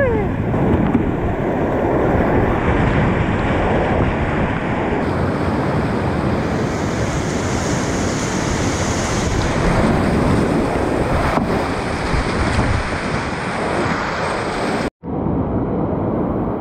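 Whitewater rapids rushing steadily and loudly around a kayak, with water and air buffeting the microphone. The sound cuts out for a moment near the end.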